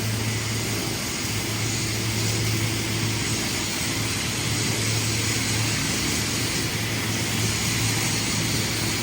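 Steady machine hum with an even hiss over it, running without a break.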